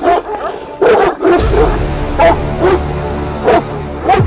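Two Anatolian shepherd dogs (Kangal type) barking at each other in a face-off, a string of deep, loud barks about two a second.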